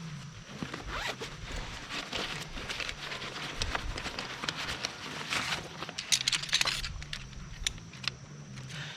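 Tent zipper being worked in short, uneven strokes, with scraping and clicks of the fabric and zipper pull.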